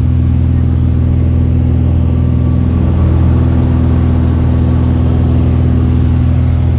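Loud, steady drone of a small single-engine propeller plane's engine, heard from inside the cabin in flight.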